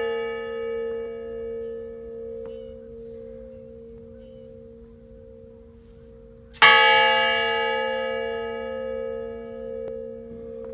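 Large brass memorial bell tolling: the last stroke rings down, then the bell is struck once about two-thirds of the way through and rings on with a long, slowly pulsing hum as it fades.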